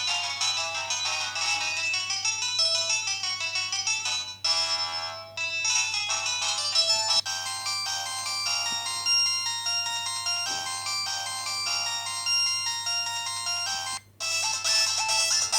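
Samsung SGH-X210 mobile phone ringtone melodies, several notes at once, played through the phone's small speaker with almost no bass. The tune breaks off briefly about four seconds in and again near the end.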